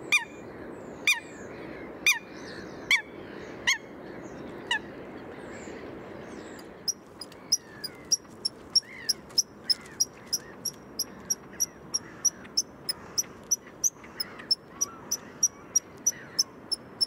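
Eurasian coots calling: loud, short, honking calls about once a second, then from about seven seconds in a fast run of high, sharp notes, about three a second.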